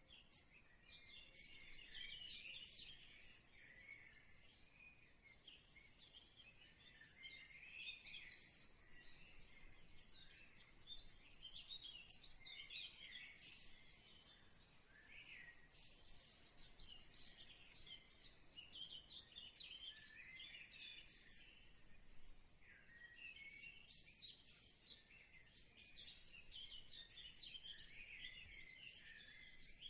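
Faint chirping of many small birds, dense short calls going on throughout over a low hiss.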